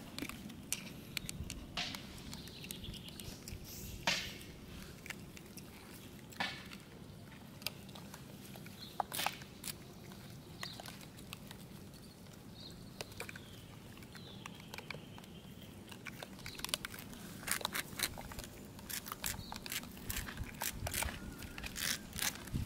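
Long-tailed macaques picking scattered grain off concrete and eating it: irregular small clicks and crunches of picking and chewing, with now and then a faint high chirp.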